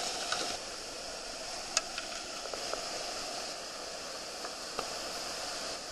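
White water pouring over a river weir: a steady rushing noise, with a few short sharp knocks, the loudest about two seconds in and another near five seconds.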